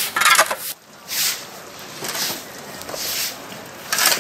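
Shovel scraping through slush and ice on a road, a short crunching stroke about once a second.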